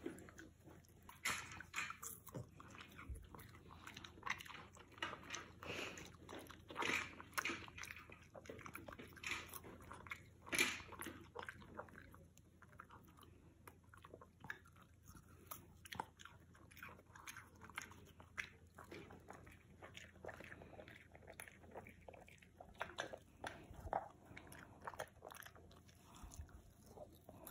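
Boston terrier biting and chewing a hand-held watermelon wedge: rapid crunching bites, closely spaced through the first half and sparser later.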